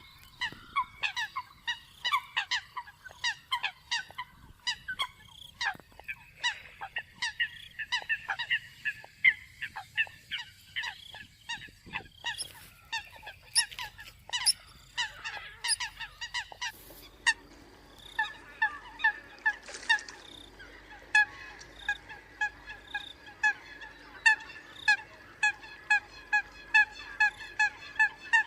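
Eurasian coots calling: many short honking calls overlapping at first, settling after about seventeen seconds into a steady run of about two calls a second. A recording of coot calls made for luring coots.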